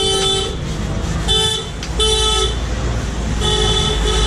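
Vehicle horn honking in street traffic: a two-tone horn sounds four times. The honk that overlaps the start breaks off about half a second in, two short toots follow, and a long blast starts near the end. A steady low traffic rumble runs underneath.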